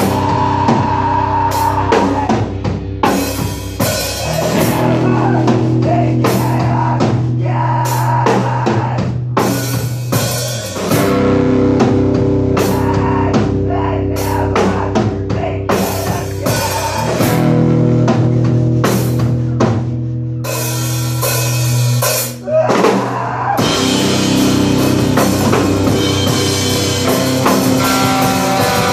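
Rock band playing live: a drum kit hit hard over loud held chords, with a brief drop-out about two-thirds of the way through.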